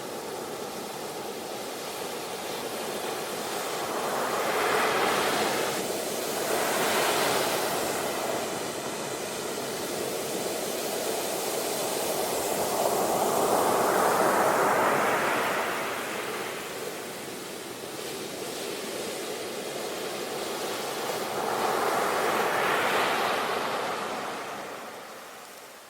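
Ocean waves breaking and washing ashore: a continuous surf hiss that swells and ebbs, with about four larger waves. The loudest comes near the middle.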